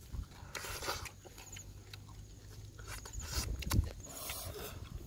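Eating sounds: chewing and lip smacks, with scattered small clicks and rustles as grilled fish and bamboo shoot are picked apart by hand.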